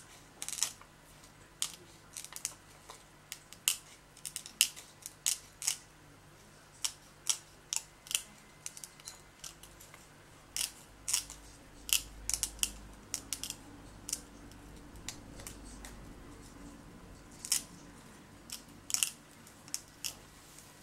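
Small craft scissors snipping through heat-embossed acetate sheet: many short, sharp snips in irregular quick runs, with a few brief pauses between cuts.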